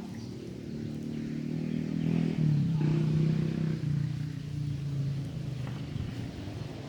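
A motor vehicle engine running, growing louder about two seconds in and fading again over the following seconds.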